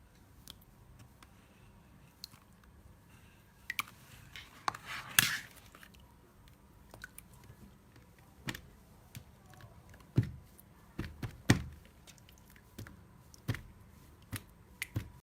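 Slime being handled and pressed by hand, with scattered sticky clicks and pops, a longer wet squelch about five seconds in, and a few soft thuds later on.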